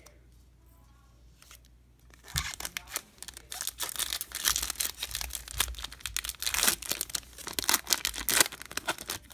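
Foil wrapper of a Topps baseball card pack being torn open and crinkled, starting about two seconds in after a quiet start.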